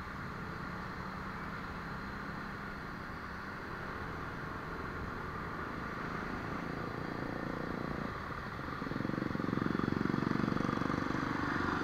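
Motor scooter engine and traffic noise heard while riding in slow, dense city traffic, with wind on the microphone; the engine and road noise get louder about nine seconds in as the rider speeds up.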